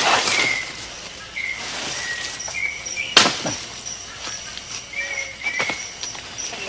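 Three sharp chopping blows of a machete cutting into a jungle liana, the second about three seconds after the first and the third a couple of seconds later. Rainforest birds whistle short chirping calls behind them.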